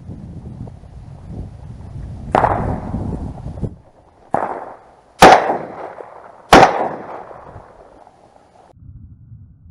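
Four shotgun shots: two quieter ones about two seconds apart, then two loud close ones about a second and a half apart, each trailing off in an echo. Wind buffets the microphone before the shooting starts.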